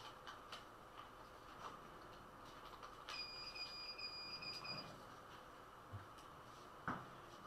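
A single steady electronic beep, a high tone lasting a little under two seconds, starts sharply about three seconds in. Faint scattered clicks run throughout, and a sharper click comes near the end.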